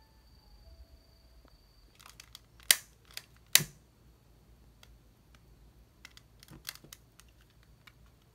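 Long-reach utility lighter clicked twice, two sharp snaps of its igniter under a second apart, as it is lit, with fainter clicks and handling taps a few seconds later.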